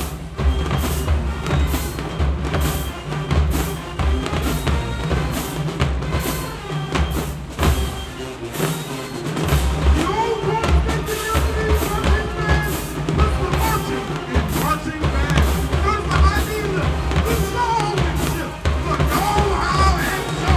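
HBCU marching band playing: a driving drum beat of bass drums and snares at about two strokes a second, with the horns' melody coming through over the drums in the second half.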